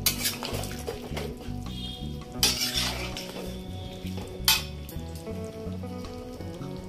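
A metal spatula stirring a wet vegetable curry in a metal kadai, scraping the pan, with sharper scrapes near the start, about two and a half seconds in and about four and a half seconds in. Background music runs underneath.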